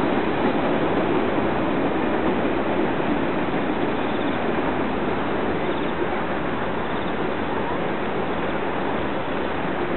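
Distant freight train wagons rolling along the rails, a steady rumbling noise that slowly fades as the end of the train passes.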